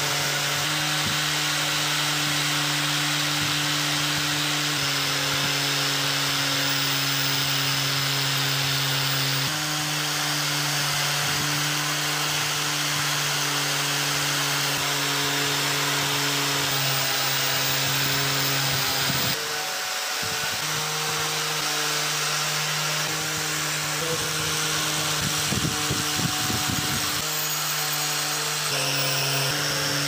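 Power tool spinning a wire wheel brush against the rusty iron head of a hatchet: a steady motor hum under a harsh scraping hiss as the rust is scrubbed off. The hum's pitch steps slightly every few seconds, and there is a brief rattle of scratching about three quarters of the way through.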